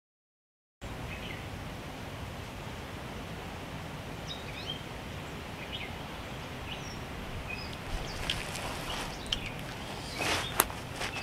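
Outdoor ambience starting under a second in: a steady background hiss with small birds chirping here and there. Rustling and a few sharp clicks come near the end.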